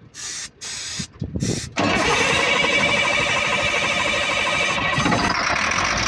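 Aerosol starting fluid hissing in a few short bursts into the air intake of a Caterpillar 950H wheel loader. Just under two seconds in, the loader's diesel engine catches and keeps running steadily. The engine is hard-starting and is being started on sprayed starting fluid.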